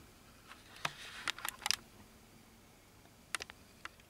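Camera handling noise: scattered light clicks and knocks as the camera is picked up and moved, a cluster of them over the first two seconds and two more past three seconds.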